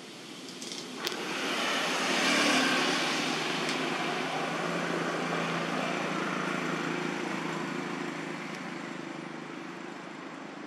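Motor vehicle engine passing by: a rumbling hum that swells from about a second in, is loudest a couple of seconds later, then slowly fades. A sharp click comes about a second in.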